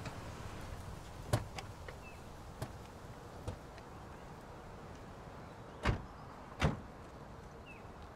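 Doors of a Toyota sedan: a few small latch clicks as the doors are opened, then two doors slammed shut, the second about three-quarters of a second after the first.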